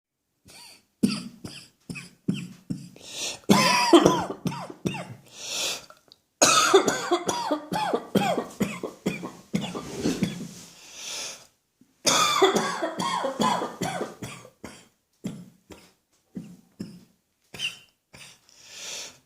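Person's dry cough: a few single coughs, then three long coughing fits of rapid coughs strung together, followed by scattered single coughs and breaths near the end.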